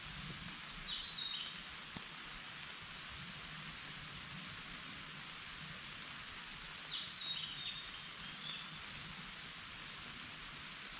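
Steady rain falling in a forest as an even hiss, with a bird giving a short chirping phrase twice, about a second in and again about seven seconds in.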